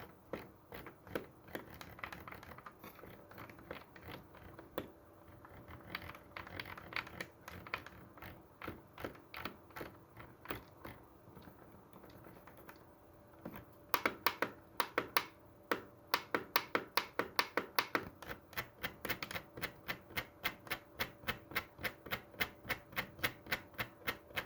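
Volume roller on a Patriot Viper V765 keyboard turned through its detents, giving a long run of small crisp clicks, softer and uneven at first, then louder and regular at about four clicks a second from about halfway through.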